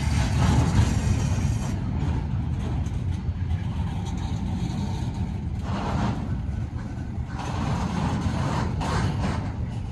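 Heavy vehicle running with a steady low rumble, with rushes of noise about six and eight seconds in.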